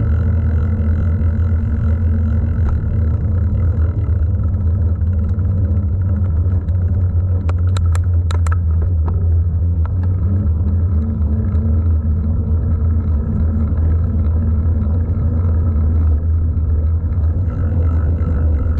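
Mountain bike rolling along a paved road: a steady low rumble of wind buffeting the camera microphone, mixed with tyre noise. A short run of sharp clicks comes about eight seconds in.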